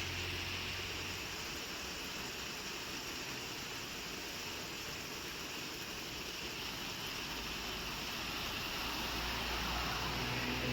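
Heavy rain pouring down as a steady hiss, with a low hum under it at the start and again in the last few seconds.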